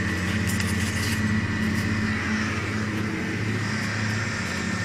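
Pickup truck's engine idling steadily, a low even hum.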